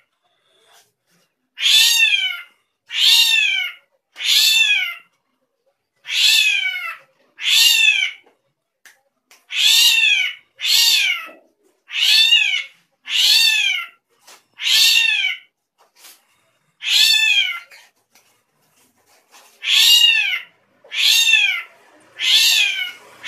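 A drongo giving a cat-like mewing call over and over, about fourteen times. Each call lasts under a second, its pitch rising and then falling, and the calls come in uneven groups with short pauses between them.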